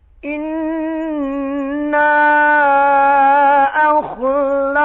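A male Quran reciter's voice in drawn-out melodic recitation, starting a moment in and holding a long vowel on a steady, slightly wavering pitch. It grows louder about two seconds in, with brief breaks in the voice near the end.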